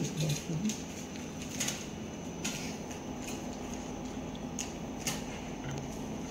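Steady shop background noise with a scattered handful of light clinks and taps, about seven over six seconds.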